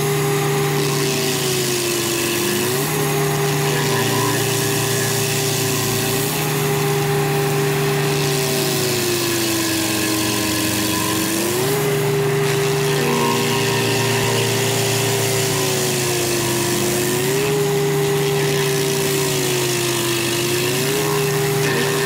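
Rayco RG74T-R stump grinder's 70-horsepower Cummins diesel running hard as its cutter wheel grinds a stump. The engine note sags in pitch and recovers about four times as the wheel bites in under load.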